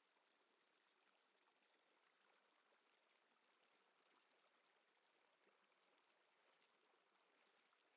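Very faint flowing stream water, a steady soft hiss with small ticks of splashing.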